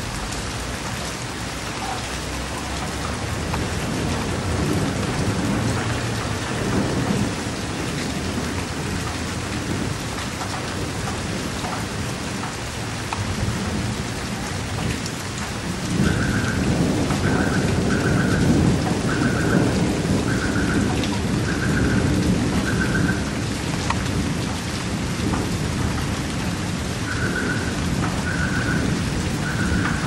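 Steady rain falling, with a deeper rumble that swells about halfway through. In the second half a short high-pitched pip repeats about once a second.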